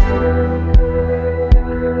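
Background music: sustained synth tones over a deep beat about every three-quarters of a second.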